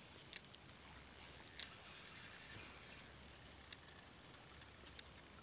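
Faint, steady, high-pitched insect chirring, with a few sharp clicks scattered through it.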